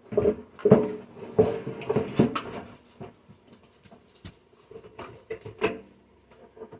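A quick run of knocks and clatters, a few of them ringing briefly, from a microwave's metal and plastic parts being handled during teardown. Several come in the first three seconds and one more near the end.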